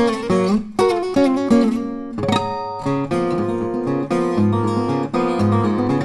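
Background music on acoustic guitar, a steady run of plucked notes over a low bass part.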